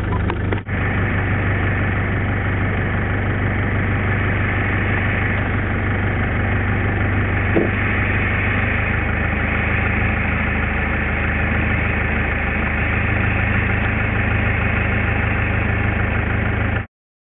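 Vehicle engine idling steadily with a constant low hum, cutting off suddenly near the end.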